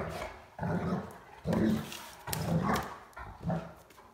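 Two Great Danes, an adult and a puppy, play-fighting and giving short, deep play barks, about one a second.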